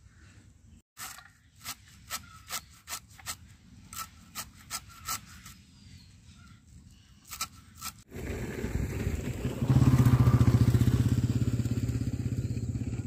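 Sharp clicks, a few a second, as amaranth (data shaak) stalks are cut into small pieces. About eight seconds in, a small engine starts running loudly close by, gets louder about two seconds later, fades a little, then cuts off suddenly.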